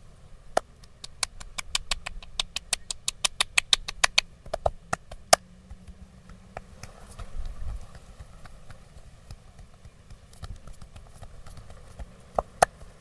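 Massage strokes making a fast, even run of sharp clicks, about five or six a second for roughly five seconds. After that come a few scattered clicks and two loud ones near the end.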